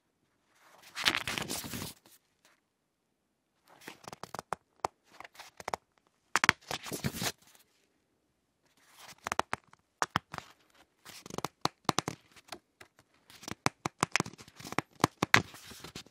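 Paper pages of a book being turned over one after another, each turn a short crinkly rustle of paper. There are several turns with brief pauses between them.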